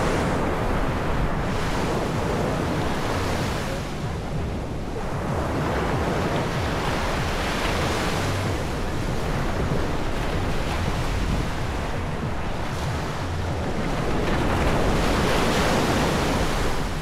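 Sea surf breaking and washing up on the beach, surging and easing every few seconds and loudest near the end, with wind rumbling on the microphone.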